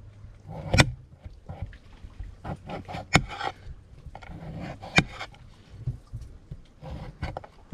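Kitchen knife cutting the spines off a garambullo cactus stem on a plate: quiet slicing and scraping, broken by sharp knocks of the blade on the plate, three of them louder, about one, three and five seconds in.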